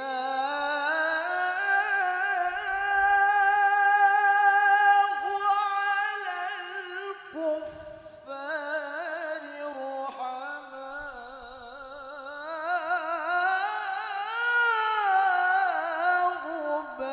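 Male qari reciting the Quran in the melodic mujawwad style into a microphone. A long, finely ornamented note is held for about seven seconds, then a short breath. A second phrase follows with quick pitch turns, climbing to a higher pitch near the end and coming back down.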